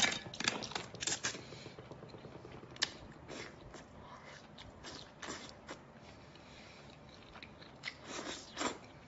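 Close mouth sounds of a person biting and chewing cooked octopus tentacles: scattered sharp clicks and smacks, bunched in the first second or so and again about eight seconds in.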